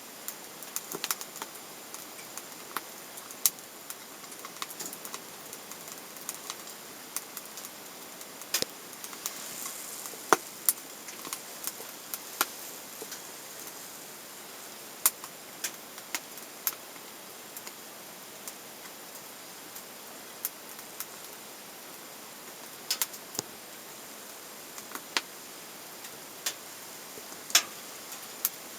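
Wood burning in a small box stove: a steady hiss with irregular sharp crackles and pops, a few of them louder than the rest.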